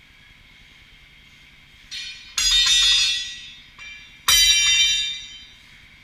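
Long steel tire iron clanging down, likely onto the concrete floor: two loud metallic clangs about two seconds apart, each preceded by a lighter knock and ringing out over about a second.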